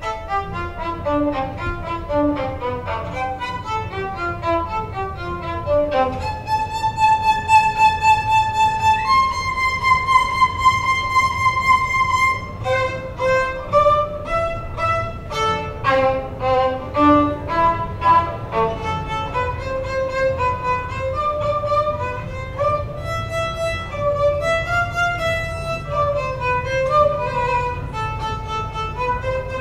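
Violin playing: quick descending runs of notes for the first few seconds, then a few long held notes, then a flowing melody.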